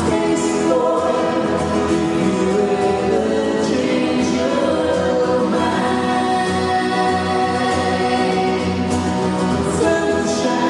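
A band playing a song live, with sung vocals over the instruments.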